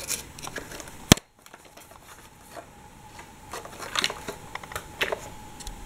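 Hands handling a plastic Lego train: scattered light clicks and rubbing of plastic, with one sharp click about a second in and a run of clicks near the end.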